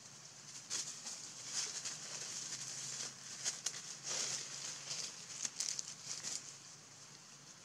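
Irregular crackling and rustling in quick bursts as a young pig-tailed macaque eats fruit among dry leaves, louder in the middle and fading near the end.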